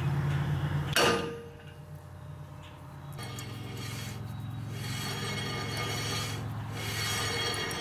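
A single hammer blow on a cast iron brake drum about a second in, ringing briefly. It knocks the drum over on its oversized stud holes to center it and cure its runout. A low steady drone continues underneath.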